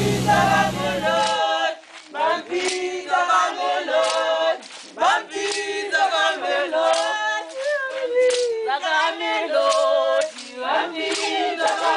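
Choir singing with rhythmic hand claps, laid over as music. About a second and a half in, the steady drone of a small plane's engine underneath it cuts off.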